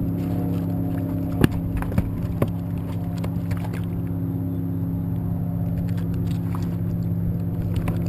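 Boat engine idling with a steady low hum. A few sharp clicks and knocks come about one and a half, two and two and a half seconds in as fish are handled on a rope stringer.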